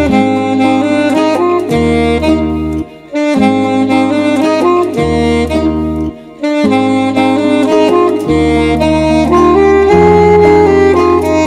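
Saxophone playing a slow melody of held notes over a backing track with a bass line; the music drops away briefly twice.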